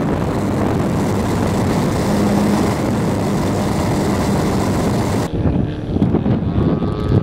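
Onboard sound of an RC Super Hauler model airplane in flight: its engine and propeller drone at a steady pitch under a loud rush of air. About five seconds in it cuts to duller, gusty wind noise at ground level.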